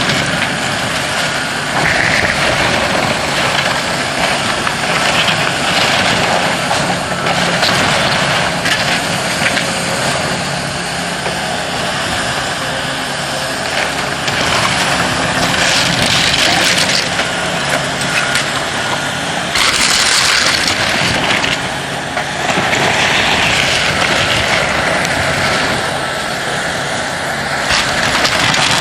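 Heavy demolition machinery's diesel engine running steadily, with repeated surges of crunching, clattering debris every few seconds as the building is torn down.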